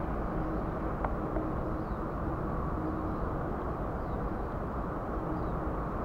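Steady, low outdoor background noise, with a single faint click about a second in.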